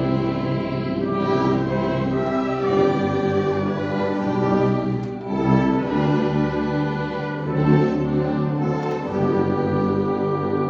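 Brass-led ensemble with a tuba on the bass line, playing a hymn in slow, held chords that change every second or two.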